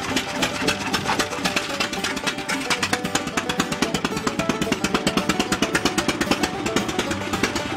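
Bull tractor's engine running steadily, with a rapid, even beat of sharp exhaust pops.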